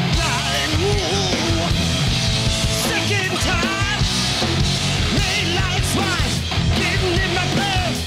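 Live rock band playing: electric guitar, bass guitar and drums, with a lead singer at the microphone.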